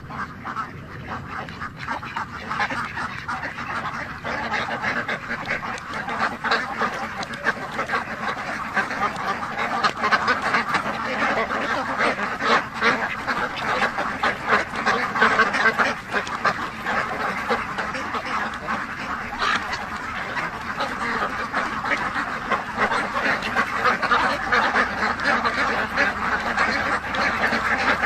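A flock of birds calling all at once: a dense, continuous chatter of short calls that grows gradually louder.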